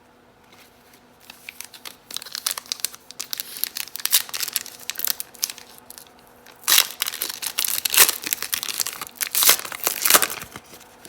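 Crinkling and tearing of a trading-card pack's foil wrapper as it is opened, a dense crackle that is loudest in two stretches in the second half.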